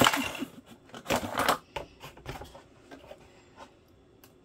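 Cardboard toy box and its cardboard insert being handled: scraping and rustling in a few short bursts, the loudest at the start and about a second in, with smaller crackles fading out before the end.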